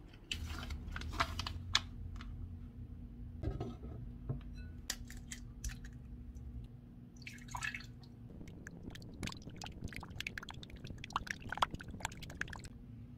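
Egg being prepared in a glass mixing bowl. First come scattered knocks and clicks, then a short splash of water poured in about seven seconds in. From about eight and a half seconds a whisk beats the egg in the bowl, a fast run of light clicks and scrapes against the glass.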